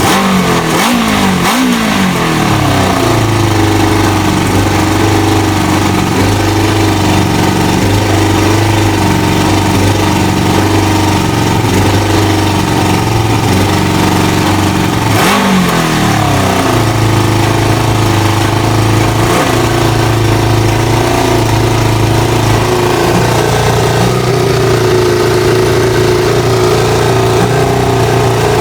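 Kawasaki ZL600 Eliminator's inline-four engine idling. The throttle is blipped about a second in and again about halfway through. In between, the idle wavers up and down: a surging idle while the air/fuel mixture screws are being set.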